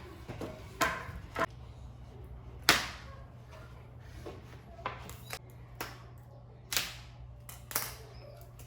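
Objects being handled and set down: a scattered series of about nine sharp knocks and clacks over a steady low hum.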